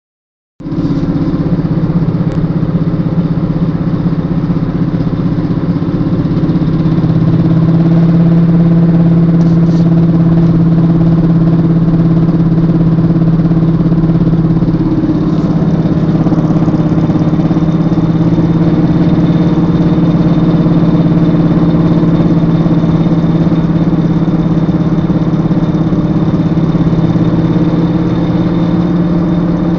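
A Volvo S60R making a loud, steady low drone from its rear end, with a strong hum that holds nearly constant and shifts slightly in pitch a couple of times; the owner presents it as an abnormal noise.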